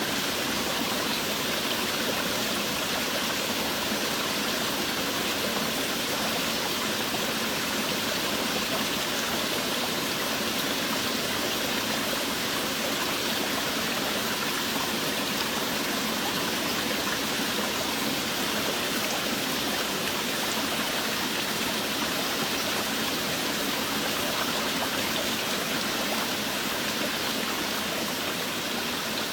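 Steady heavy rain: an even, unbroken rushing hiss with no separate drops standing out.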